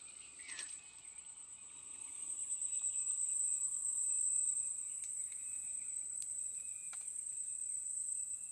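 A steady, high-pitched insect trill, most likely crickets, swelling a little in the middle and then holding, with a few faint ticks.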